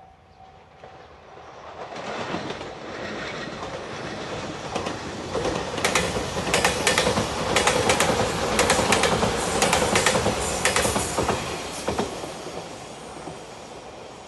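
Anpanman-liveried JR express train passing close by. The rumble builds over several seconds, then the wheels click in quick pairs over the rail joints as the cars go by, and it fades away near the end.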